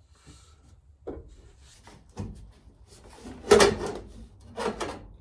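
A square metal tube cross brace being fitted across a car body's stripped interior, knocking and scraping against the body metal in four or five separate bumps. The loudest comes about three and a half seconds in.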